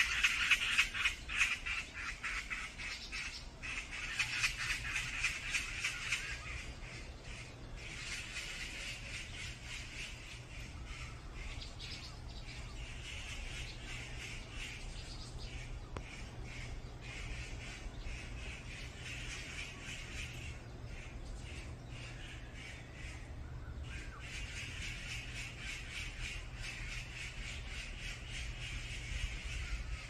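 Mixed wild birds calling, with rapid chattering calls loudest around the start and further bouts of calling on and off throughout. A faint steady low hum lies underneath.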